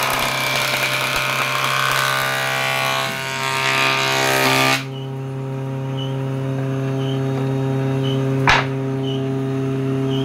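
Jointer (surface planer) cutterhead planing a wooden board fed across it: a loud, dense rasping cut over the steady hum of the running machine. The cut stops suddenly about five seconds in, leaving the machine running free, and a single sharp knock comes near the end.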